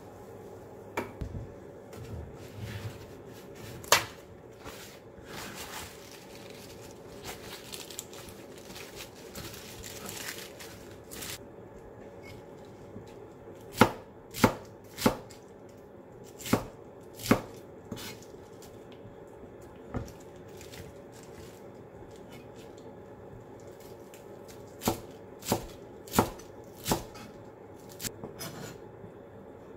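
Kitchen knife chopping softened cabbage on a plastic cutting board, giving sharp knocks of the blade on the board. A few knocks come in the first seconds, then a run of about one every half second in the middle and another short run near the end, with softer rustling of handling in between.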